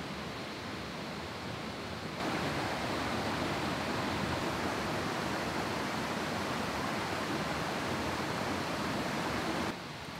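Steady rushing of a mountain stream in a valley gorge. It is louder from about two seconds in and drops back abruptly near the end.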